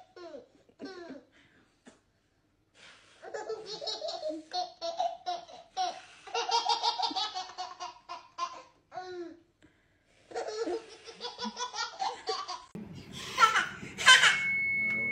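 Baby laughing in repeated bursts of giggles and belly laughs, with short pauses between. Near the end, after a cut, a child squeals and a steady high tone starts.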